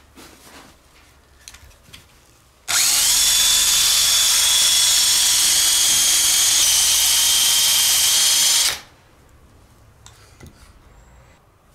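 Makita cordless drill spinning a wooden spindle hard against a softwood hearth board to grind out a friction-fire ember. It spins up about three seconds in, runs steadily for about six seconds with a motor whine over the hiss of the grinding wood, then stops. A few light handling clicks come before and after.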